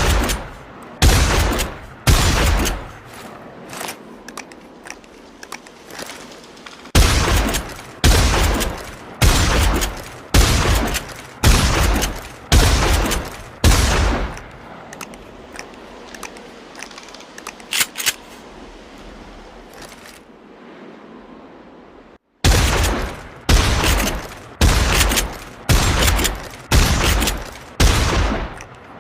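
Trench shotgun firing in runs of shots about one a second, each shot a sharp blast with a short echoing tail. The firing pauses twice, and during the second pause two small sharp clicks are heard.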